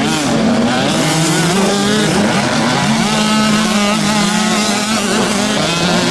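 Several small two-stroke youth motocross bikes racing together, their engines revving up and down over one another.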